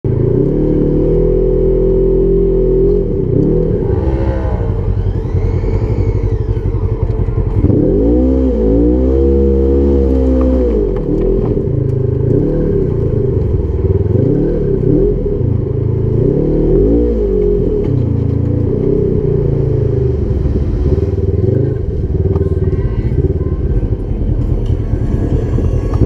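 Side-by-side UTV engine revving up and down repeatedly, its pitch climbing and falling several times. A high whine sweeps up and back down about four seconds in.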